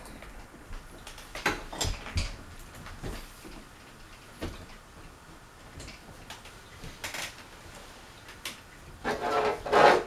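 Handling noises: scattered knocks, clicks and rubbing, with a louder scraping rustle near the end.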